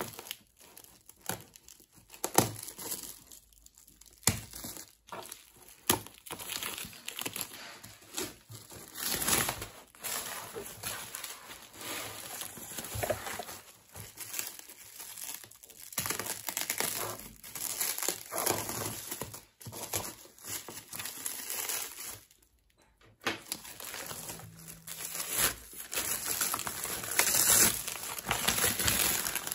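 Clear plastic wrap crinkling as it is pulled and peeled off a cardboard box by hand, in irregular crackling handling noise, with a short pause about three-quarters of the way through.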